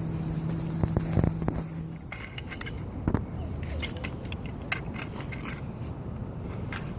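Toy construction vehicles scraping and clicking in dirt and gravel, in scattered small knocks and scrapes. A steady hum runs under the first two seconds and stops.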